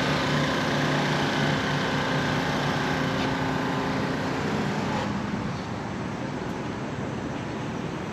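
A motor engine running steadily over a constant hiss, easing off and getting quieter about five seconds in.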